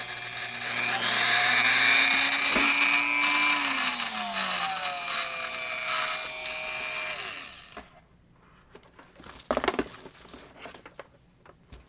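Tacklife RTD36AC rotary tool motor running with a high whine, its speed rising about a second in and then falling over several seconds before it is switched off; the flex shaft attachment screwed onto it is not being turned. A few light handling clicks follow.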